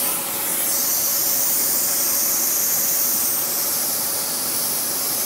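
Gravity-feed paint spray gun hissing steadily with compressed air, over a faint steady hum from the inflatable booth's blowers.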